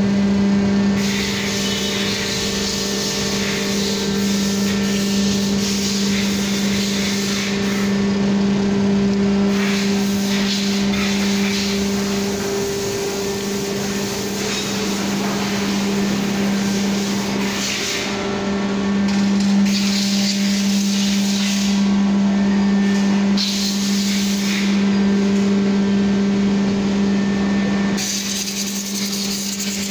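Kawasaki K3V112S hydraulic piston pump running on test: a steady hum with a hiss over it that shifts a little in strength.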